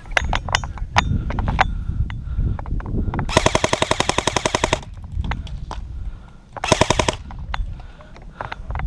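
Airsoft guns firing: scattered single shots, then a rapid full-auto burst of about a second and a half, and a second short burst about seven seconds in.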